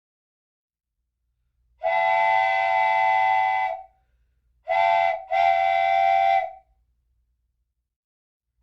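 A train whistle sounding a chord of several steady tones in three blasts: a long blast starting about two seconds in, then a short blast and a longer one.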